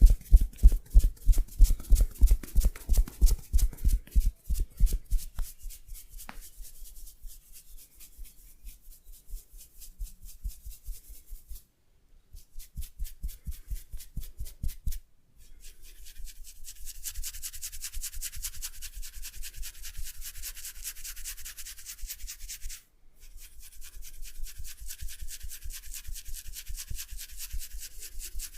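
Hands working briskly in a head massage: loud quick patting strikes at about five a second for the first few seconds, then lighter rapid strokes, then fast rubbing over the head with a steady hiss. The sound cuts out briefly three times.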